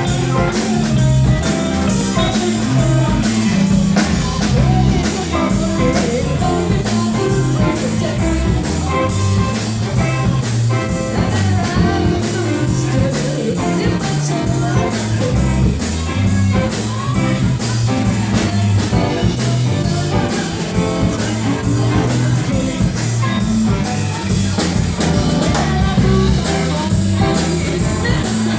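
Live blues-rock band playing with guitar, a walking bass line and a steady beat, with no sung words.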